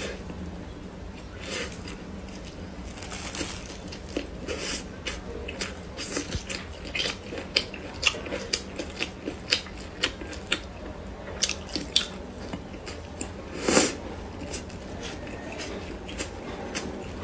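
Close-miked eating sounds: biting and chewing a soft stuffed bun, with many short wet mouth clicks and smacks. A louder crackly bite or tear comes about 14 seconds in, and a fried flatbread is torn near the end.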